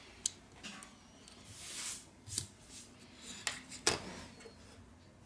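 Small sharp clicks and taps of a smartphone's triple rear camera module being lifted off its motherboard and set down on a hard work surface, with a brief rub or scrape near the middle. The loudest click comes a little before four seconds in.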